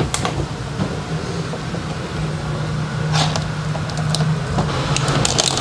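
Wire strippers cutting and stripping insulated wire, giving a few short clicks and snips, over a steady low hum of a running machine.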